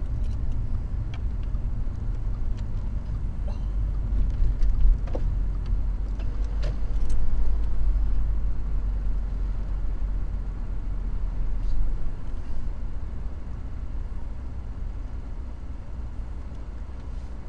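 Car driving, heard from inside the cabin through a dashcam: a steady low rumble of engine and tyres with a few small clicks and rattles. The rumble drops off about twelve seconds in as the car slows for an entry barrier.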